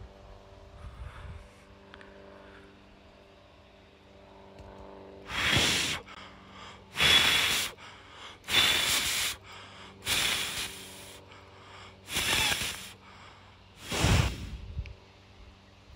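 Heavy, loud breathing close to the microphone: six deep breaths, one every second and a half or so, starting about five seconds in. A faint steady low hum lies beneath.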